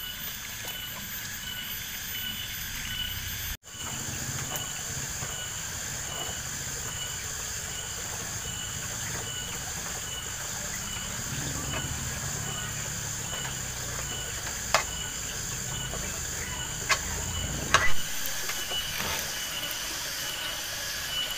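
Steady insect chirping in the background, one of them pulsing evenly. A few sharp clicks and knocks near the end, from a metal spatula scraping cooked rice out of a blackened wok.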